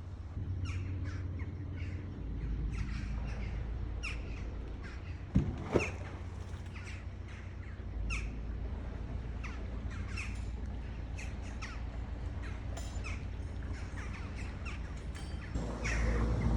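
Birds calling repeatedly, short calls about twice a second, over a steady low rumble. There are two sharp knocks about five and a half seconds in.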